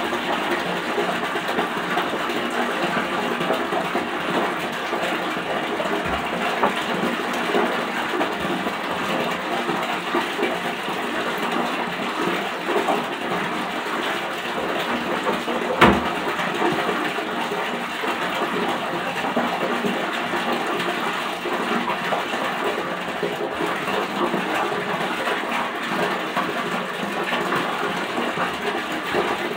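Water running steadily from a bathroom tap, with a single knock about 16 seconds in.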